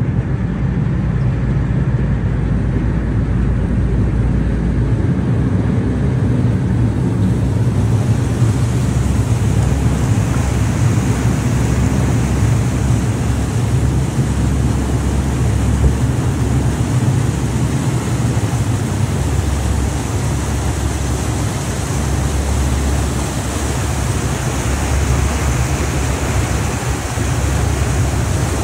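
Small car ferry's engine running steadily under way, a deep continuous drone, with the rush of propeller wash churning behind the stern. The hiss of water and wind grows louder from about seven seconds in.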